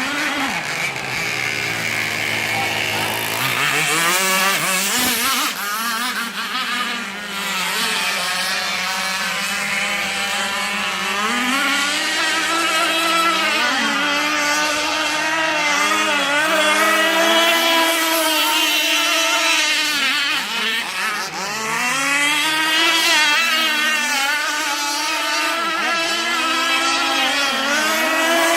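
Petrol radio-controlled catamaran boat's two-stroke engine running, its pitch falling away in the first couple of seconds, climbing back about three seconds in, then rising and falling repeatedly as the throttle is worked.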